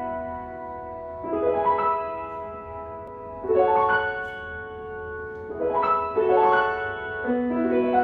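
Grand piano playing the solo introduction to a violin-and-piano piece: broken chords, their notes entering one after another and then left to ring, a new chord every two seconds or so.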